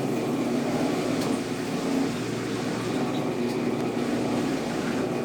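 Consul Facilite 10 kg top-loading washing machine running its wash stage: a steady low drone of the motor and drum.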